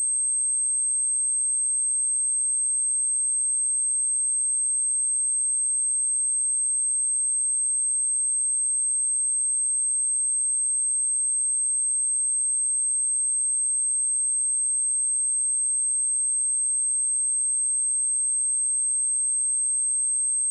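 A single pure electronic sine tone at 8356 Hz, a high, steady whistle that holds at one pitch and level without a break. It is a speaker test tone, also played to shake water and dust out of a phone speaker.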